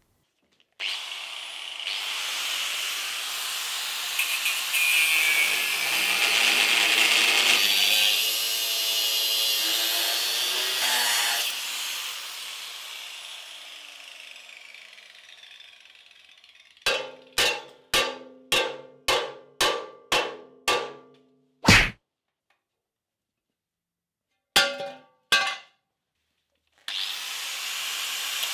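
Angle grinder cutting into a steel Land Rover chassis rail, its sound building and then slowly dying away as the disc coasts to a stop. Then comes a quick run of about eight sharp ringing knocks, roughly two a second, and a few single knocks. The grinder starts up again near the end.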